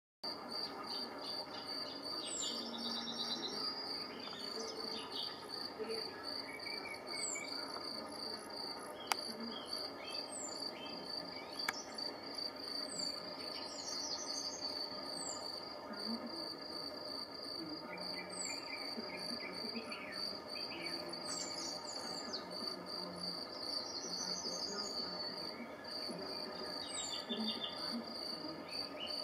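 Insects chirping in a steady, rapid, evenly pulsed high trill, cricket-like, with several small songbirds calling and singing around it. Two short clicks stand out about 9 and 12 seconds in.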